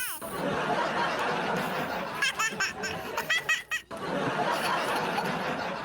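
Breathy, excited laughter: a long hissing giggle with a few short high-pitched squeals of laughter about two to four seconds in.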